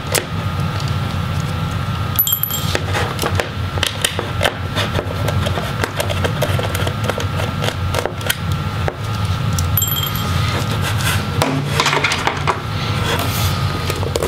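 A small screwdriver turning out laptop hinge screws, with scattered light clicks and clinks of the tool and tiny metal screws. Twice, at about two seconds and about ten seconds in, a small metal part clinks with a short ring.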